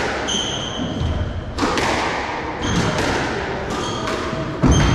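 Squash rally: the ball struck by rackets and hitting the walls, a sharp thud about every second, the loudest near the end, with short squeaks of court shoes on the wooden floor.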